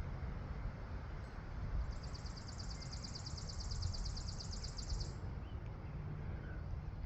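Wind buffeting the microphone in a steady low rumble. About two seconds in, a bird gives a high, rapid trill of about ten notes a second that lasts about three seconds.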